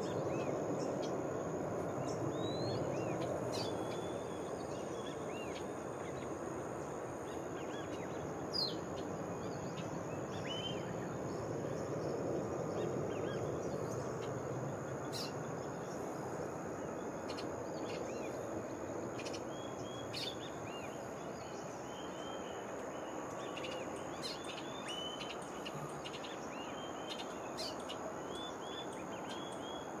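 Scattered short chirps and calls of tropical forest birds over a steady background hiss, with a thin continuous high-pitched tone running underneath. A single sharp click stands out about nine seconds in.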